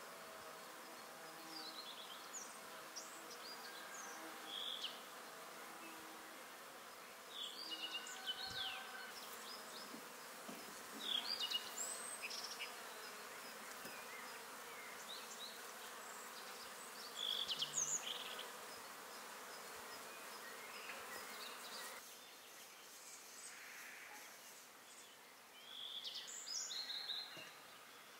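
An insect buzzing, with songbirds giving short chirps and whistled calls in small clusters every few seconds. The buzz is heard in the first several seconds, and the loudest bursts of birdsong come about halfway through and near the end.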